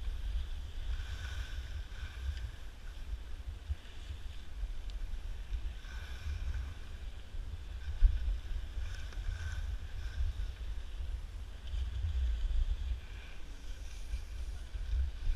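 Wind buffeting the microphone of a skier's body-worn camera during a fast descent, a steady low rumble, with the hiss and scrape of skis carving over packed snow. A single sharp knock about eight seconds in.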